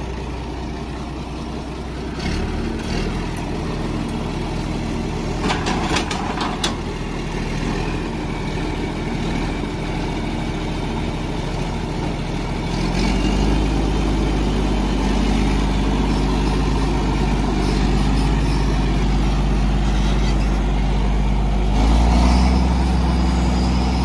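John Deere farm tractor's diesel engine running at idle, then revving up about halfway through and again shortly before the end as the tractor pulls away. A few sharp metallic clanks a quarter of the way in.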